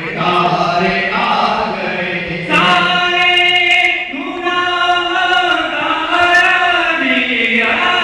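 A group of men chanting a devotional song together in unison, holding long sung notes that change pitch every second or two.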